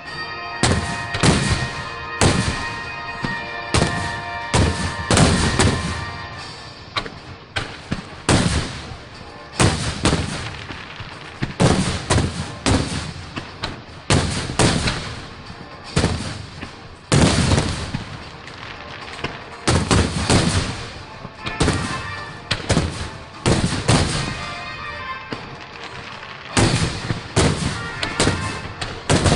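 Aerial fireworks shells bursting in quick succession, a sharp bang about every second or faster, each with a rolling echo, the display going on without a break.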